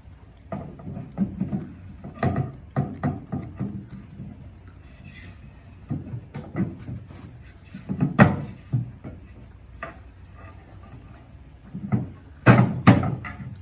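Knocks, clatters and scraping as a rack's backer panel is worked onto the tabs of the side panels, irregular handling noises with the loudest knocks about eight seconds in and a cluster near the end.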